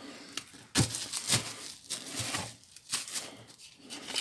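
A folded paper note being handled and unfolded: a series of short paper rustles and crinkles.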